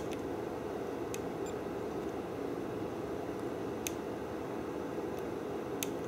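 Steady low background noise with a few faint, sharp clicks spread through it.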